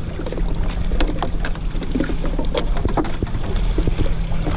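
Wind rumbling on the microphone, with scattered small knocks and splashy noises over it.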